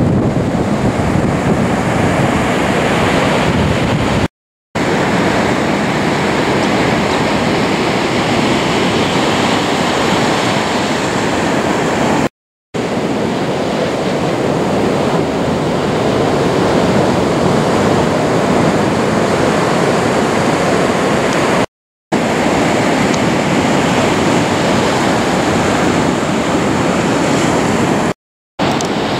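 Ocean surf breaking and washing up the beach: a steady loud rush of water that cuts out completely for a moment four times.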